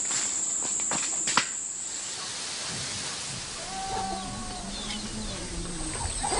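A steady, high-pitched insect drone with a few sharp footstep-like clicks, which cuts off suddenly about two seconds in. A quieter outdoor background follows, with a few short pitched calls, and the high drone comes back near the end.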